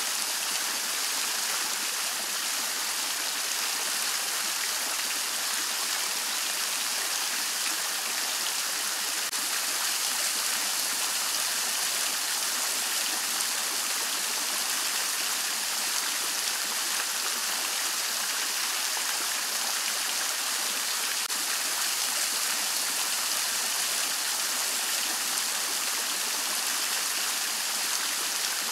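Henri Studio three-tier Renaissance fountain running: water spilling off the scalloped tiers and splashing into the basin below, a steady bright splashing with little low end.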